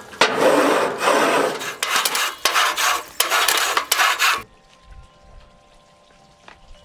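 A wooden grill scraper rasping back and forth over hot gas-grill grates in quick repeated strokes. The new paddle is still burning into grooves that match the grate bars. The scraping stops abruptly about four and a half seconds in, leaving a quiet stretch with a faint low thump or two.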